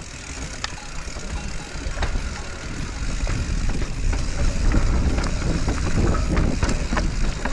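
Radon Swoop enduro mountain bike rolling down a dirt singletrack: a low rumble of tyres on the trail and wind on the microphone, with occasional sharp clicks and rattles from the bike. The rumble gets louder about three seconds in.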